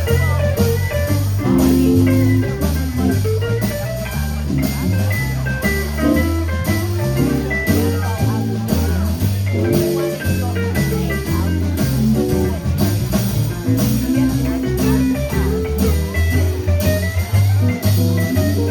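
Live blues band playing an instrumental passage: guitars over a moving bass line and drums keeping a steady beat.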